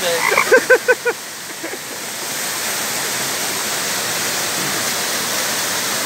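Water rushing over rock slabs of a waterfall, a steady even rush that fills in from about two seconds in. In the first second, a quick run of about six short voiced calls.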